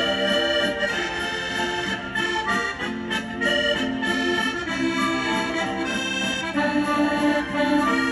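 Instrumental background music: a melodic tune of held, changing notes with no voice.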